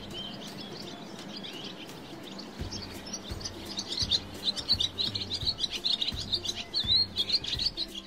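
Swallow twittering: a rapid, chattering run of short high chirps that grows busier and louder about a third of the way in.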